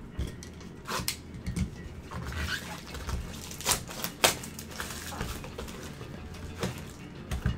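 A cardboard trading-card box and its plastic wrapping being handled by gloved hands: irregular rustling and crinkling with several sharp cracks, the loudest about halfway through, over a steady low hum.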